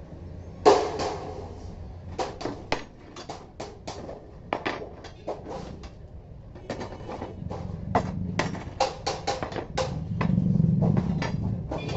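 Irregular sharp knocks and clatters, like metal pieces being handled and set down, with one loud strike about a second in. A low hum runs beneath and grows louder near the end.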